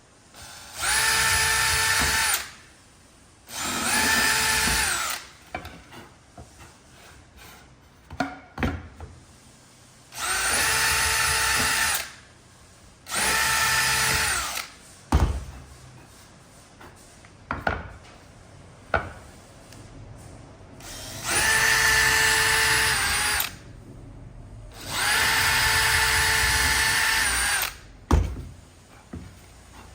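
Cordless drill on its fast speed setting boring screw clearance holes through softwood. It runs in six separate bursts of about two seconds each, falling into three pairs, each burst a steady whine that spins up and winds down. Between the bursts come a few short knocks and clicks.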